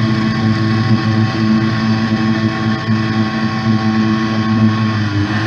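Off-road vehicle engine running at a steady idle, a constant drone with no revving.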